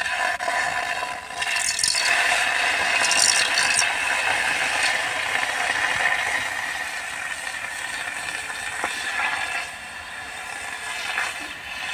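Frooti mango drink poured from its carton into a hot aluminium saucepan over a wood fire, making a steady sizzling hiss that eases off after about ten seconds.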